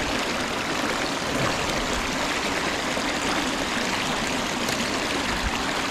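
River current rushing and splashing over rocks at the water's edge: a steady, even wash of moving water.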